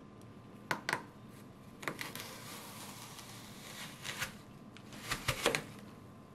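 Stainless steel apple slicer-corer pushed down through a whole apple: a couple of sharp clicks about a second in as it is set on, then a crisp crunching for a couple of seconds as the blades cut through the flesh, and a cluster of sharp knocks near the end as it goes through onto the wooden cutting board.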